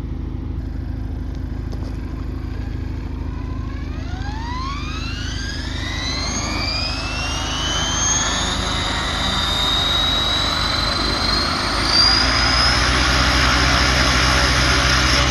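Align T-Rex 600 ESP electric RC helicopter spooling up. Its motor and gear whine rises smoothly in pitch from about four seconds in, growing louder, then holds at a steady high whine for the last few seconds over a low rotor hum.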